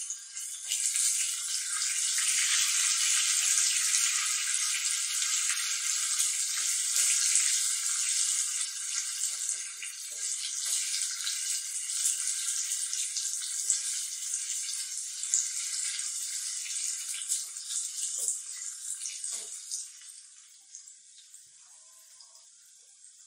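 Shallots and a split red chilli sizzling in hot oil in a small tempering ladle, with scattered crackles. The sizzle swells about a second in and dies down near the end.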